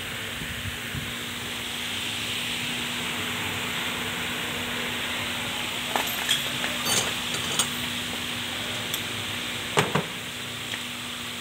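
Steady hiss with a low hum under it, and a few light metallic clinks and knocks from metal parts being handled on a car's front suspension, mostly from about six seconds in.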